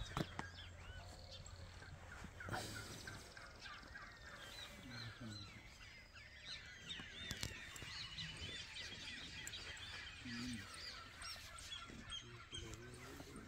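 Faint chorus of many birds chirping and calling, with a few lower honk-like calls mixed in. Two sharp knocks sound, one about two and a half seconds in and one about seven seconds in.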